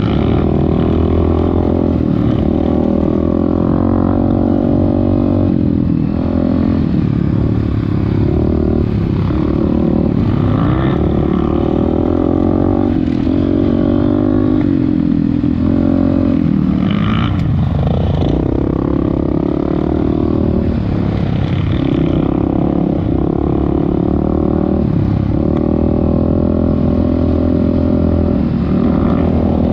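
Off-road motorcycle engine running continuously under changing throttle, its pitch rising and falling, with a brief drop in revs about two-thirds of the way through.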